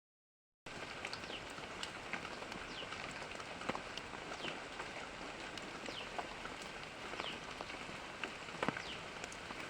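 Steady patter of water with many small sharp clicks and drip-like chirps, starting about half a second in.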